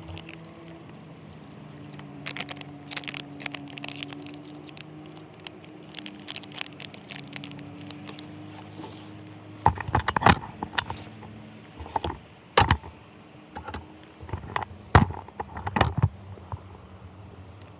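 Scattered sharp clinks and clatter of small hard objects being handled, loudest in a cluster past the middle, over a steady low hum.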